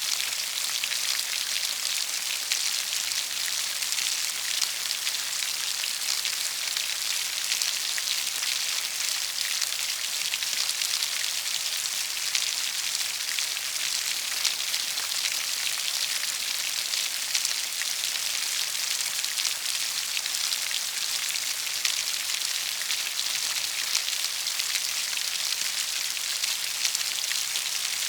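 Steady rain falling: an even, bright hiss of many drops pattering, unchanging throughout.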